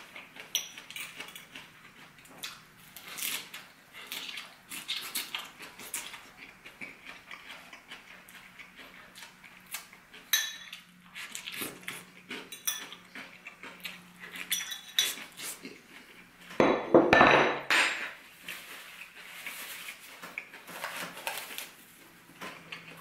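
A metal fork clinking and scraping on a small plate during salad eating, with short clicks throughout. A longer, louder clatter comes about three-quarters of the way through.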